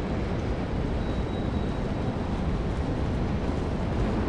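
Steady low rumbling ambience of a large railway station hall, with no distinct events standing out.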